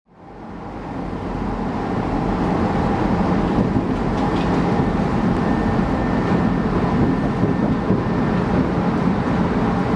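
CTA subway train running through an underground station: a steady heavy rumble with a faint high whine over it, fading in over the first two seconds.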